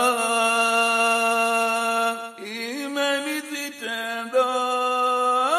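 A solo voice singing an unaccompanied Swahili Islamic nasheed. It holds one long note for about two seconds, then draws out the end of a line in short ornamented turns before settling on another long note.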